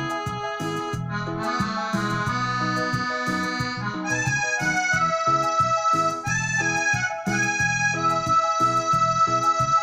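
Arranger keyboard playing a melody on a sampled Gabbanelli accordion voice over a backing of bass and a steady beat.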